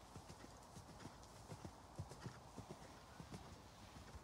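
Faint hoofbeats of a bay Irish Sport Horse × KWPN gelding cantering on a sand arena surface: a run of soft, dull thumps in an uneven rhythm.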